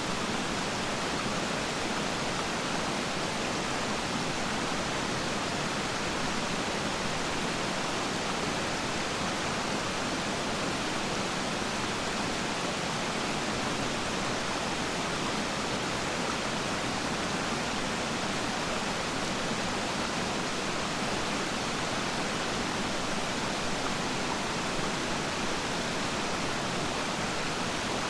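Waterfall rushing steadily: water falling and splashing in a constant, even roar with no change in level.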